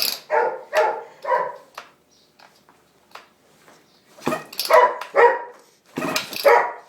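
A dog barking in short runs of two or three barks, with a pause of about two seconds in the middle.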